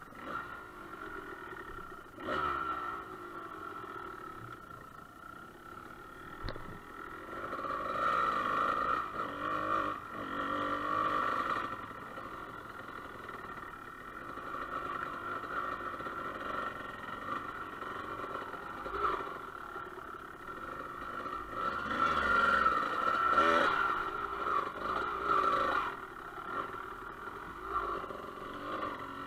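Dirt bike engine running under way, its pitch rising and falling as the throttle opens and closes, with two louder stretches of revving, about a third of the way in and again near the end.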